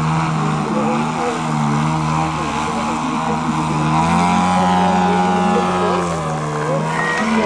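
Propeller engine of an aerobatic plane running hard in a smoke-on display pass. Its pitch rises about four seconds in and falls back near six seconds as the plane pulls up into a steep climb.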